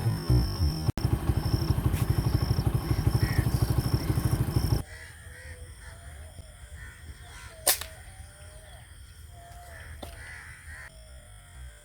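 Music with a fast pulsing beat cuts off suddenly about five seconds in, leaving birds calling outdoors. A single sharp crack about three seconds later, typical of an air gun shot.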